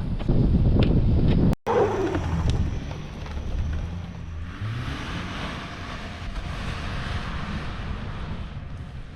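A vehicle's engine working hard as it pushes through about two feet of unplowed snow, with a sudden brief cut about a second and a half in, then a steady hiss over the engine.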